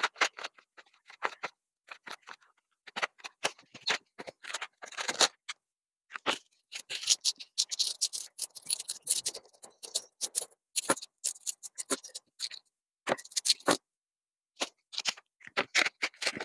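Cash counted by hand: euro banknotes rustling and coins clicking against each other and the tabletop, in a run of short, irregular clicks and rustles.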